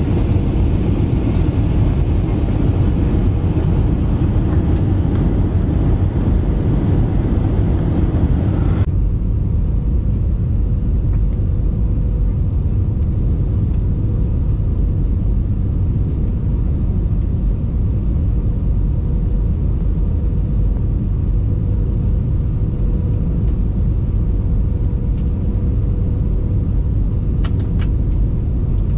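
Airbus A320 cabin noise at a window seat on final approach and landing: a steady low rumble of engines and airflow with a faint steady hum. The higher hiss drops away abruptly about nine seconds in.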